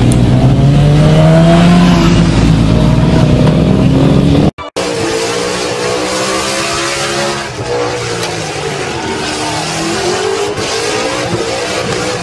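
A sport motorcycle's engine running close by, its pitch slowly rising. After a sudden cut about four and a half seconds in, a car doing a burnout: its engine held at high revs, rising and falling, over the hiss and squeal of spinning tyres.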